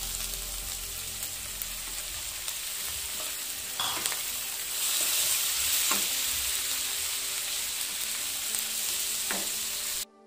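Onions, tomatoes and spices sizzling in butter in a non-stick kadai, stirred with a wooden spatula, with a few short knocks of the spatula against the pan. The sizzle grows louder about halfway through.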